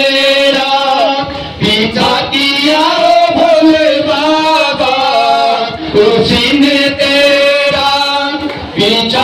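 Devotional chanting sung by a group of voices, mostly men, in long melodic phrases of a few seconds each with short breaks between them.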